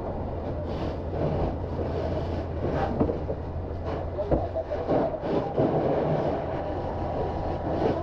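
A motor running steadily with a low hum, with irregular clatter and a few short knocks over it.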